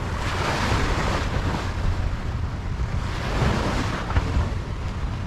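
Wind buffeting the microphone over the wash of bay water, rising and easing in a couple of swells.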